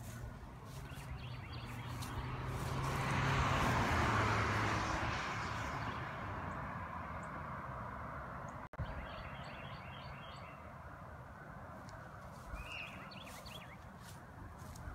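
Outdoor ambience with a vehicle passing, swelling to its loudest about three to five seconds in and slowly fading, with a low engine hum under it. A few faint bird chirps come through twice.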